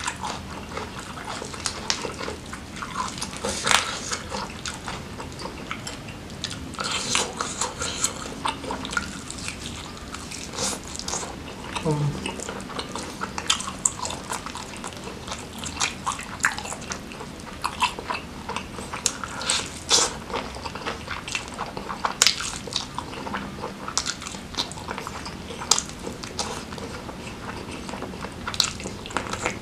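Close-miked eating sounds of a person chewing and biting grilled chicken dipped in chili sambal, eaten by hand. They come as irregular wet clicks and smacks throughout.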